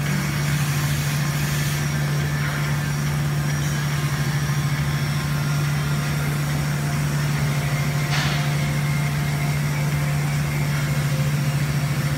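Steady low hum from TIG welding equipment while a stainless steel pipe joint is being welded, with a faint hiss over it and a short hiss about eight seconds in.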